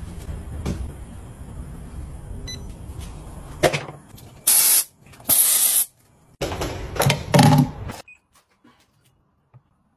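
Two short hisses from an aerosol spray can, each under a second, after a stretch of rumbling handling noise. A few seconds later the sound drops to near silence, with only a few faint clicks.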